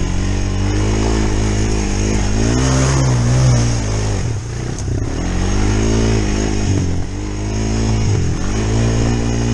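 Honda Recon ATV's single-cylinder four-stroke engine running under way, revving up and easing off repeatedly as the throttle is worked.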